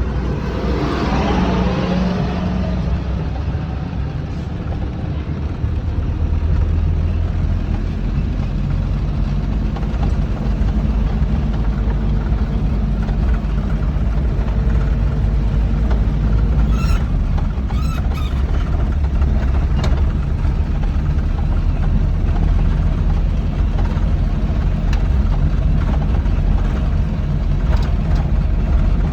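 Rice combine harvester's engine running steadily under load, with scattered short clicks in the second half.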